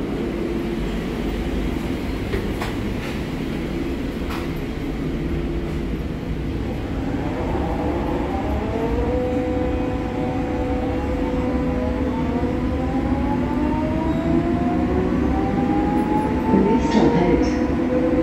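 Inside a subway car: a steady rumble and hum, then from about seven seconds in the electric traction motors whine, several tones climbing slowly in pitch as the train picks up speed. A few light rattles come near the end.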